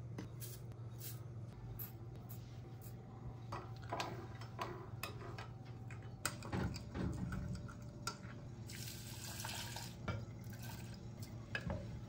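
Kitchen handling sounds: dry oats rattling into a pot, a spoon clinking against a glass mug while stirring coffee, and a short rush of liquid being poured about nine seconds in. A steady low hum runs underneath.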